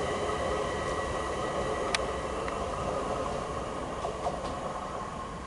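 London Overground class 378 electric train running away along the track: a steady electric whine over wheel-on-rail rumble, slowly fading as it recedes, with a single sharp click about two seconds in.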